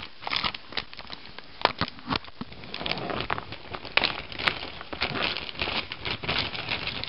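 Clear plastic zip bag crinkling and crackling as it is handled, in a quick irregular run of crackles.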